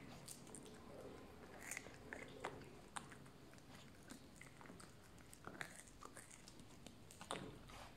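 Puppy gnawing and chewing on a large bone, with faint, irregular crunches and clicks of teeth scraping and biting on the bone.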